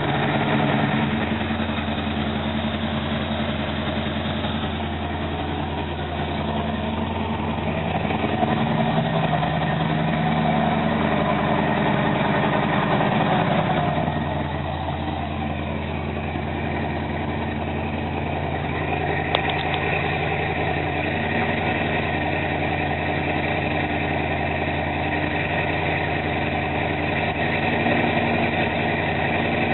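Oldsmobile 350 (5.7 L) V8 fitted with a new Comp Cams XE268 camshaft, running steadily during its camshaft break-in run. It is a little louder for a few seconds near the middle.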